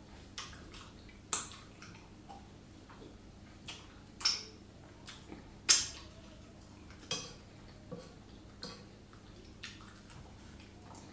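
A fork clinking and scraping against a plate as food is picked up: about a dozen irregular clinks, a few of them much louder than the rest.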